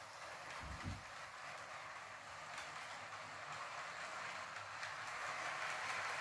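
OO gauge Class 309/1 model electric multiple unit running on the track: a steady whirr of its motor and wheels on the rails that grows slowly louder as it comes round the curve, with a brief low thump about a second in.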